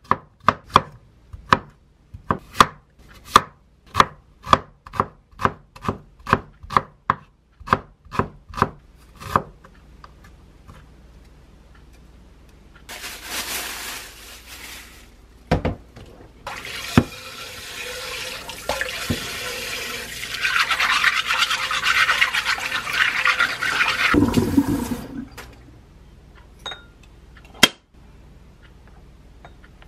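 Kitchen knife chopping vegetables on a wooden cutting board, about two chops a second, stopping about nine seconds in. Then tap water runs into a stainless-steel sink while clams are rubbed clean under the stream, cutting off about 25 seconds in. A single sharp tap follows near the end.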